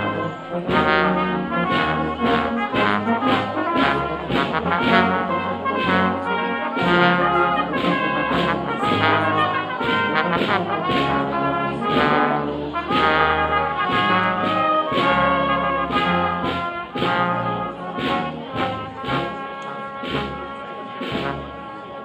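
Brass band playing a tune in full: cornets carry the melody over a deep tuba bass line that moves in long held notes.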